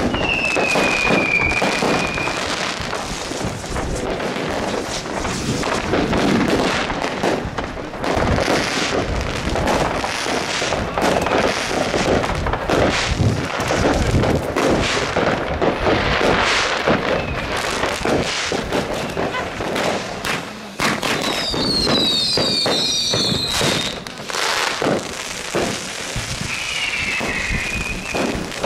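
Many fireworks going off at once: a steady barrage of bangs and crackling from bursting rockets and shells. High whistles gliding down in pitch cut through near the start, in a cluster about three quarters of the way through, and again near the end.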